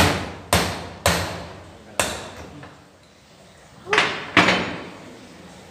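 Hand hammer striking a centrifugal pump part clamped in a bench vise: six ringing metal blows, four in the first two seconds, a pause, then two more close together. The blows are knocking out a bearing whose outer ring is stuck in its housing.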